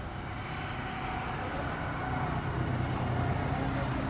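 Low, steady engine hum of a motor vehicle, growing slowly louder.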